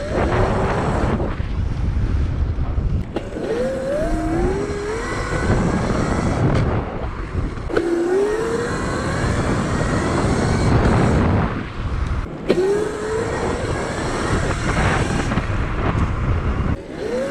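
Razor MX500 electric dirt bike's motor whining as the bike speeds up again and again. Each time the whine rises in pitch over a second or so and then levels off, about four times in all, over a steady rush of wind and tyre noise.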